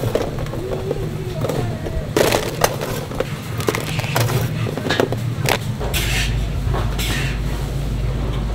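A metal spatula and tongs scraping and clicking against steel trays as sticky glazed boneless fried chicken is scooped into a paper box. Sharp clicks come irregularly from about two seconds in, over a steady low hum.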